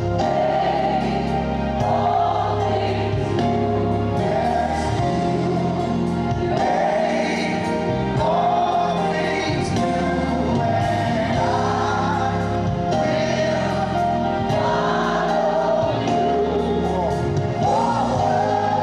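Live gospel choir singing, with the voices rising and falling over steady instrumental accompaniment.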